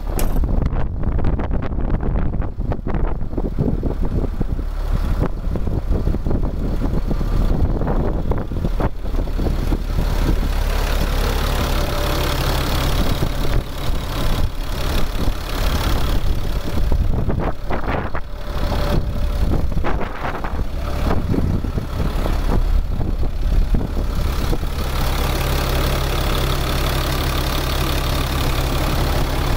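2002 Freightliner FL60 boom truck's diesel engine idling steadily, heard close up at the open engine bay.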